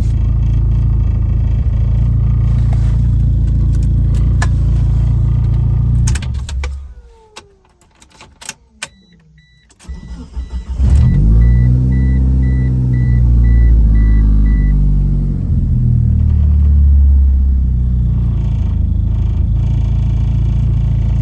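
1997 Mitsubishi Eclipse GSX's turbocharged four-cylinder idling, then switched off about six seconds in, winding down with a few clicks while a dashboard warning chime beeps steadily. The engine is cranked and restarts about ten seconds in, its idle rising and falling a couple of times before settling, part of the idle control problem being sorted out on this car.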